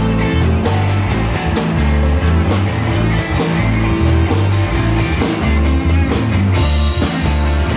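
Live rock band playing: electric guitars, bass guitar and drum kit, loud, with a steady drum beat and a cymbal crash near the end.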